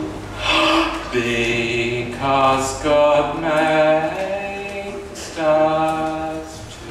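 A man's voice chanting into a microphone in long, drawn-out notes, each held about a second with short breaks between them.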